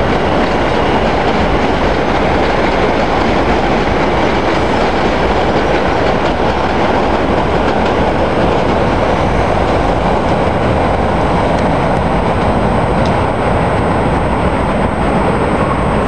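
Kawasaki R160B subway train running past on elevated track, a steady, loud, unbroken train noise of wheels on rail.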